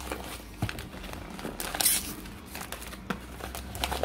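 Brown paper wrapping being torn and crumpled by hand as it is pulled off a cardboard box: irregular crinkling and rustling, with a louder crackle about two seconds in.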